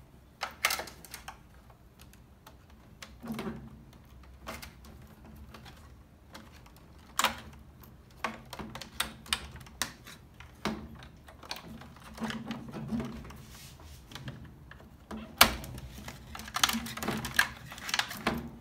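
Plastic wire-harness connectors being unplugged and handled on a Whirlpool top-load washer's control board: scattered clicks and snaps with wires rustling. There is a sharp knock about three-quarters of the way through, followed by a quick run of clicks.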